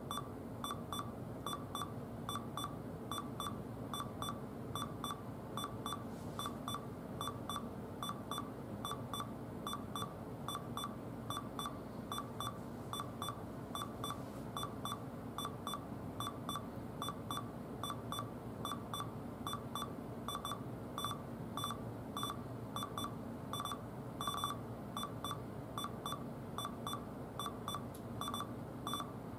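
Dell N7110 laptop beeping steadily while its BIOS is being flashed, a short high beep about twice a second.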